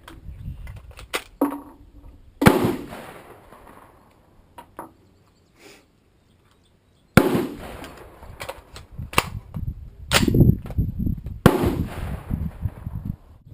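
AR-15 rifle firing three single shots several seconds apart, each with a ringing echo, with smaller clicks and knocks in between.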